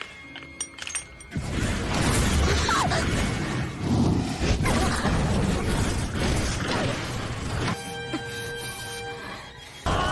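Anime battle sound effects over music: a few light clinks in the first second, like spent shell casings landing on stone pavement, then a loud, dense run of impacts for about six seconds, then quieter held tones near the end.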